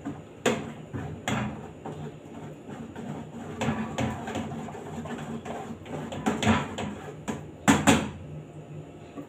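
A cooking utensil knocking and scraping against a stainless steel pot while the contents are stirred, with a handful of sharp clinks, a double one near the end, over a low steady hum.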